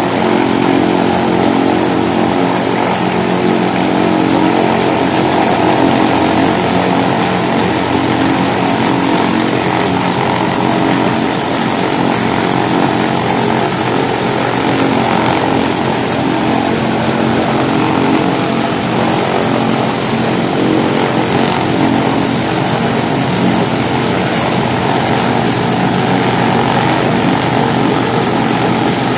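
Pratt & Whitney R-1830 Twin Wasp radial engine of a Douglas C-47B Dakota running steadily during a ground run, a loud, even drone with no change in speed.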